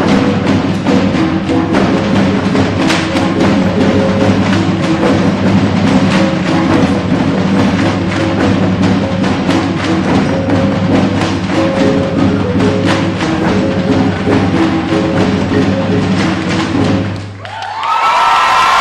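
Percussive music with rapid, dense wooden clacks over sustained low tones. It cuts off abruptly near the end, and clapping and cheering voices take over.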